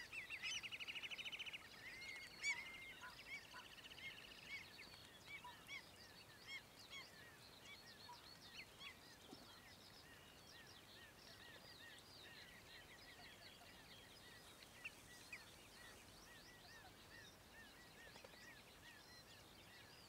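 Shorebirds calling: a fast trill in the first second and a half, among many short, high piping calls that grow fainter and sparser after the first few seconds.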